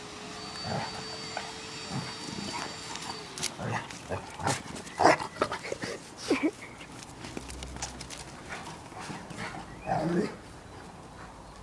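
Two large dogs, a Cane Corso and a mastiff, playing, making short irregular vocal sounds and scuffles; the loudest come about five, six and ten seconds in. A faint steady tone runs under the first few seconds, then stops.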